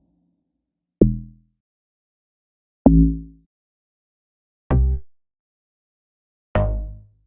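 Bass-boosted amapiano log drum one-shot samples played one after another: four short, deep pitched hits about two seconds apart, each a little different in pitch, each dying away within half a second with silence between.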